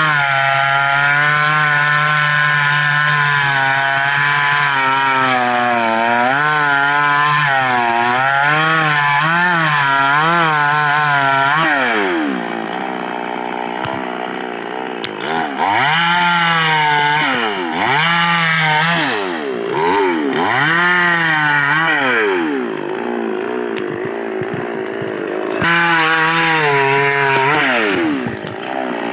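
Petrol chainsaw, which the owner says runs on a motorcycle engine, running at full throttle through a tree limb for about the first twelve seconds. It then drops back and is revved up and down over and over between cuts. Near the end it settles back into a steady high-revving cut.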